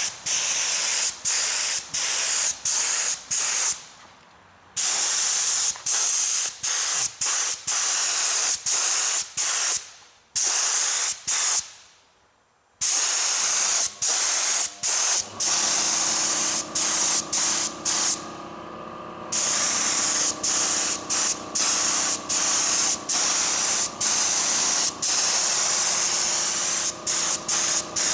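Gravity-feed air spray gun hissing in many short bursts as the trigger is pulled and released, with a few longer pauses. A steady machine hum joins about halfway through.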